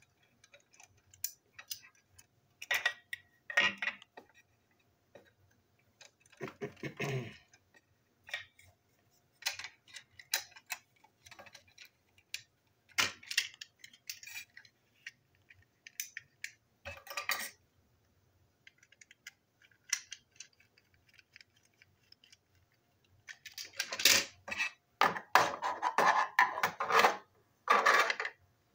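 Small plastic toy train wagon parts clicking and rattling in the hands as a TrackMaster four-plank wagon body is snapped onto its chassis. There are scattered single clicks, then a louder, denser run of plastic clatter near the end.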